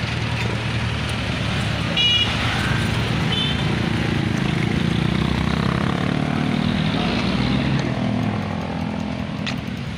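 Road traffic at the roadside: a motor vehicle engine running close by, a steady low hum that grows a little louder in the middle, with a brief high beep about two seconds in.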